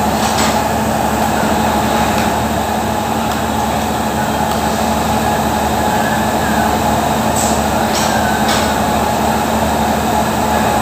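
Factory machinery running: a steady, loud drone with a constant low hum, and a few light clicks about three quarters through.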